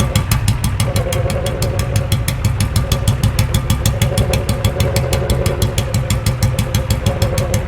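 Engine idling steadily with a fast, even pulsing beat.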